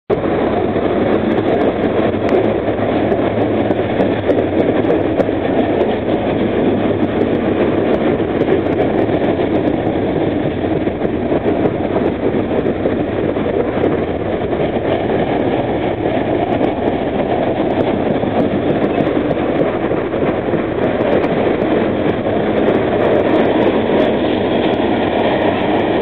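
Loaded garbage-container flatcars of a freight unit train rolling past, a steady loud wheel-on-rail rumble with scattered sharp clicks from the wheels and rails.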